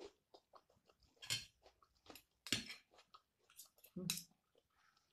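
Close-up chewing of a mouthful of raw red onion and shrimp fried rice: soft crunches and small wet mouth clicks, with a few louder crunches about one and a half, two and a half and four seconds in.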